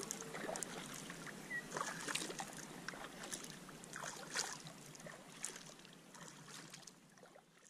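Faint water splashes and drips around a packraft paddle, a scatter of small irregular splashes that fade out near the end.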